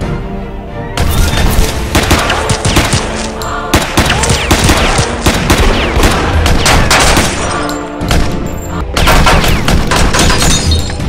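Rapid gunfire over dramatic soundtrack music: the shooting starts about a second in, breaks off briefly around eight seconds, then comes back in another flurry.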